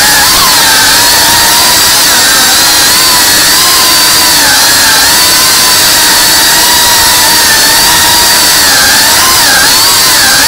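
Cinewhoop FPV drone's motors and ducted propellers running with a loud, steady whine whose pitch rises and dips as the throttle changes, with a couple of quick dips near the end.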